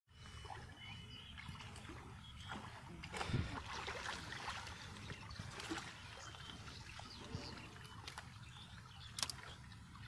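Shallow river water sloshing and splashing as two people wade and sweep a bamboo-framed push net through it, over a steady low rumble. A louder splash comes about three seconds in, and a sharp knock near the end.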